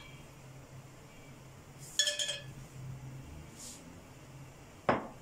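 Kitchenware clinking: a ringing clink about two seconds in and a single sharp click near the end, over a faint steady low hum.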